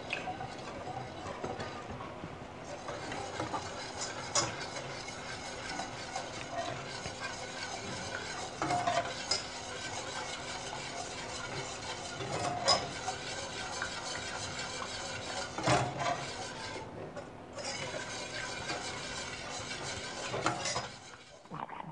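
Wire whisk stirring a thick milk-and-flour sauce in a stainless steel saucepan: a steady swishing scrape with a few sharp clinks of the whisk against the pan.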